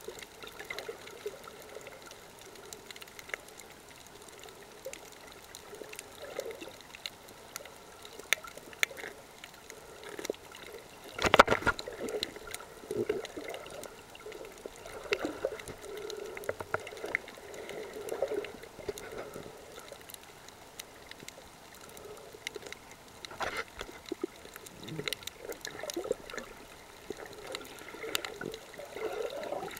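Muffled water gurgling and sloshing around a camera recorded underwater, with scattered faint clicks. There is a louder gush about eleven seconds in.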